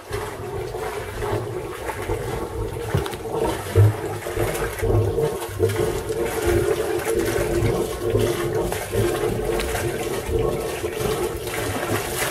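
Wet exhaust of a Volvo Penta D3 110 hp five-cylinder diesel idling, burbling and splashing its cooling water out of the hull outlet at the waterline.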